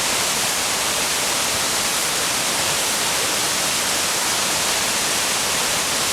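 Minoh Falls in heavy flood flow after a typhoon: a steady, loud rush of falling water with no let-up.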